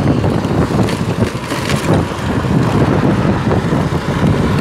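Wind buffeting the microphone of a phone carried on a moving motorcycle, a loud, uneven low rumble, with the bike's engine and road noise mixed in.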